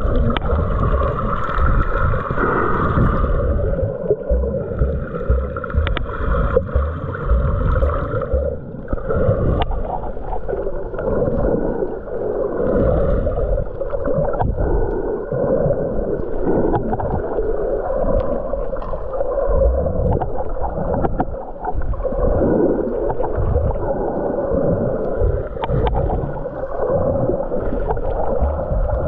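Muffled underwater water noise, churning and gurgling, with scattered small clicks. A faint whine rises and falls through roughly the first third.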